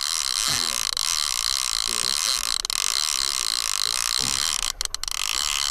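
Deep-drop fishing reel working under the load of a hooked fish: a steady mechanical whir.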